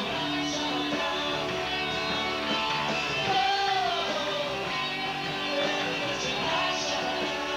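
Rock band playing live, electric guitars to the fore.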